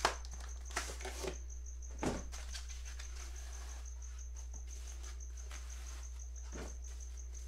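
A cardboard box and a white foam packing block being handled: a few sharp knocks and scrapes in the first second or so, another about two seconds in and one more near the end. Under them run a steady low hum and a faint, evenly pulsing high-pitched tone.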